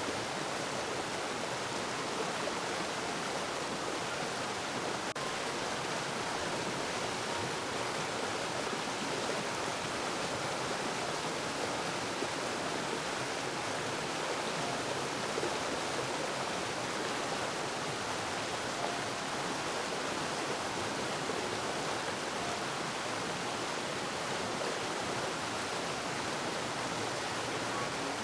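Running water rushing steadily, an even, unbroken sound.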